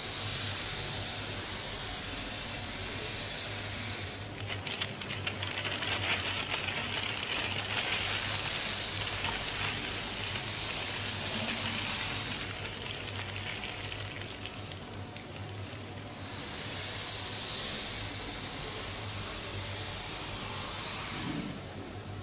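Amplified strokes of a drawing tool dragged across paper, drawing long straight lines: three hissing strokes of several seconds each. Between the first two is a scratchy, crackling stretch, and a steady low hum runs underneath.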